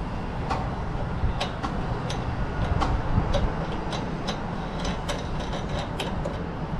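Irregular light clicks and taps, two or three a second, from a hand working a roof basket's mounting clamp on a car roof, over a steady low rumble.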